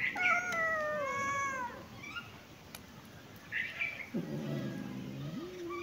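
Cat meowing: a long meow falling in pitch at the start, then about four seconds in a low, drawn-out yowl that climbs in pitch near the end.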